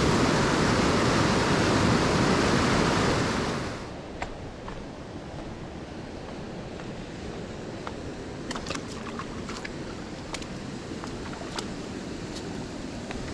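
Loud rushing water of a swollen mountain stream, which drops away about four seconds in to a quieter steady flow with scattered light clicks.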